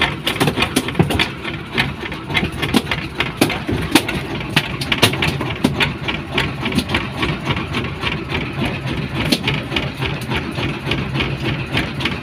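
Small boat's engine running steadily at idle, with frequent sharp clicks and knocks over the hum.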